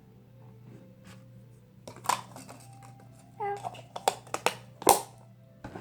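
Several sharp taps and clicks of containers and utensils being handled as more baby powder is added to a slime mixture, over a steady low hum, with a short voice sound about halfway through.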